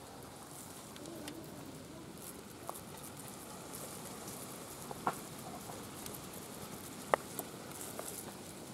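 Quiet handwork of rolling sticky obbattu stuffing into balls, with a few sharp taps, the loudest about seven seconds in, and faint chicken clucks in the background.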